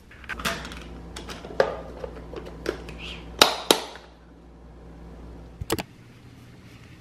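A glass food-storage container being handled, with light clacks and knocks and then two sharp clicks close together about three and a half seconds in as its lid latches snap shut. A low hum runs underneath for the first few seconds, and another pair of light clicks comes near the end.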